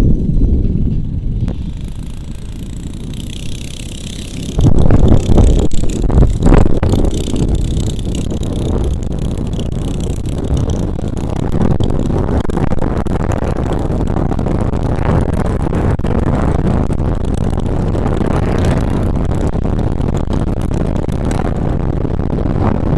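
Small-engine bike running flat out on a speed run with a knockoff 22 mm Mikuni carburetor. It is loud throughout, with a louder stretch about five to seven seconds in.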